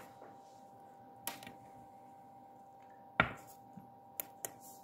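A few light clicks and taps from hands handling a ring, the loudest about three seconds in, over a faint steady high whine.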